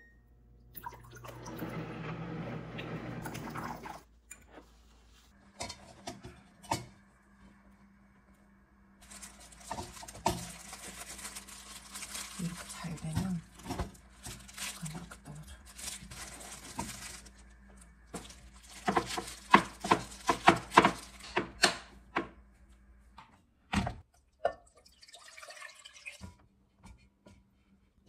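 Liquid poured into a glass measuring cup for a few seconds, followed by a run of kitchen handling sounds: rustling, clinks and sharp taps of containers and utensils.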